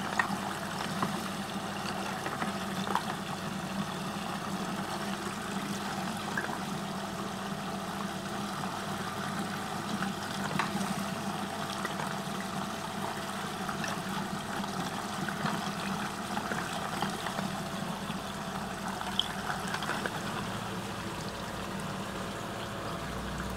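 Water swirling steadily in a whirlpool vortex and draining through the hole at its centre, over a steady low hum, with a few scattered light ticks.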